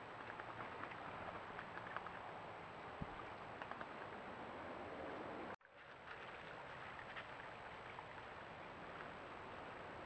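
A trail camera's own outdoor recording: a steady hiss with faint scattered ticks and rustles, under a thin, constant high-pitched electronic whine. The audio cuts out for an instant a little past halfway, where one clip ends and the next begins.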